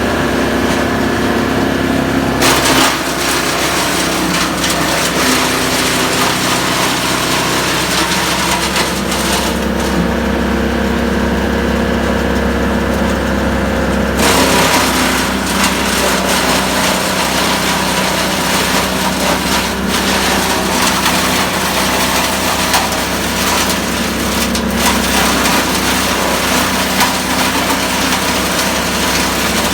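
Chainsaw running at high speed and cutting wood, its engine note shifting with the load about two seconds and again about fourteen seconds in.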